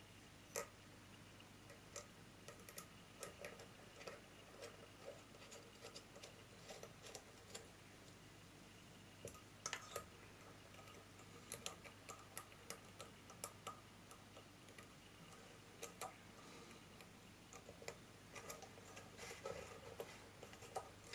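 Scattered small metallic clicks and taps from dome jaws and their screws being fitted by hand to a Record Power SC2 woodturning chuck and done up finger tight. They come irregularly over a faint steady low hum.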